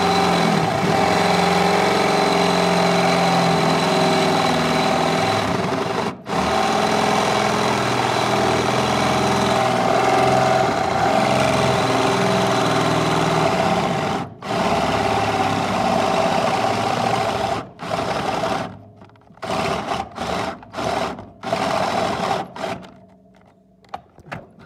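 Electric drill boring through two layers of sheet metal, the motor running steadily under load. It pauses briefly twice, then near the end comes in a run of short trigger bursts before stopping.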